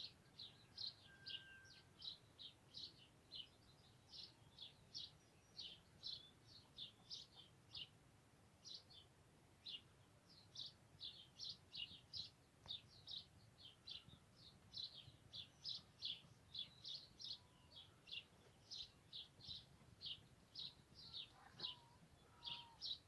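Songbirds chirping, faint: a steady stream of short, high chirps at about two to three a second, with a few brief pauses and an occasional lower whistle.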